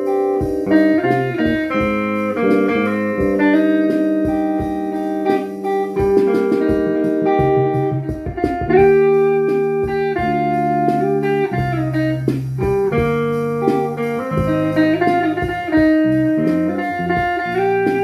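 Guitar music: a melody of held notes over plucked guitar accompaniment.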